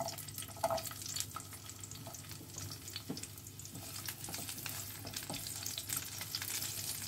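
Cubed onion sizzling and crackling in hot oil in a non-stick kadai, being lightly fried. A spatula stirs it, scraping and tapping against the pan now and then.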